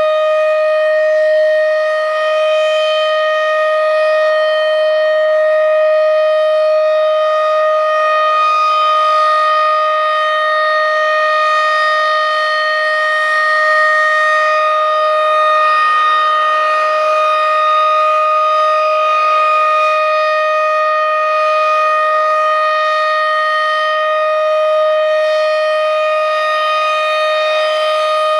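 Federal Signal Thunderbeam electromechanical outdoor warning siren sounding a steady tone, held at one constant pitch with no rise and fall. This is the siren's steady signal, which it gives for every signal of the monthly test.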